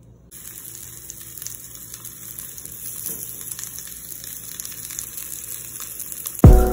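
Whole okra pods sizzling in olive oil in a frying pan, a steady hiss with small crackles. Near the end a sudden loud thump, then background music starts.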